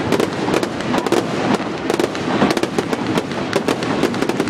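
Fireworks going off in a steady crackling and popping, many sharp cracks a second with no let-up.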